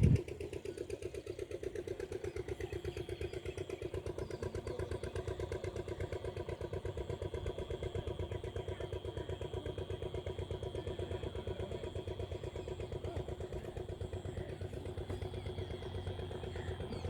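Boat engine running steadily with a fast, even chugging beat.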